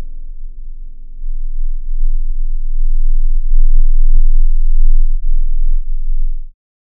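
Slowed-down recording of a bass singer's subharmonic note: a very deep, buzzing vocal tone that sinks lower in pitch, with a few sharp clicks partway through, cutting off near the end.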